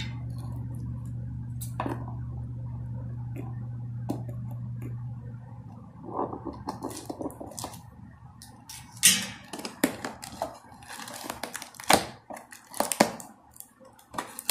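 A cardboard product box being opened by hand: rustling, scraping and sharp clicks as fingers pick at the packing tape and flaps, starting about six seconds in. Before that only a steady low hum, which stops as the handling begins.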